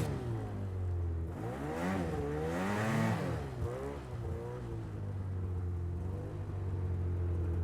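A motor engine revving, its pitch swooping down and back up several times, then settling into a steady low hum for the second half.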